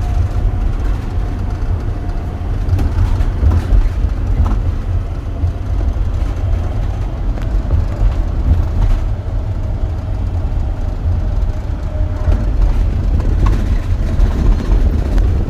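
Steady low rumble and running noise of a moving vehicle.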